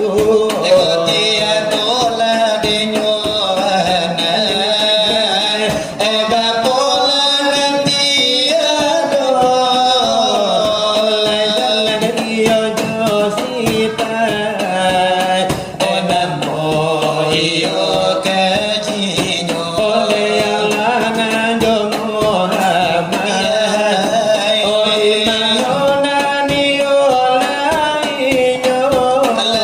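Selawat dulang: melismatic devotional singing in a wavering melody, accompanied by quick, continuous finger-tapping on a brass tray (dulang).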